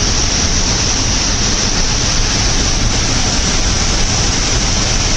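A big waterfall close by: a loud, steady rush of falling water.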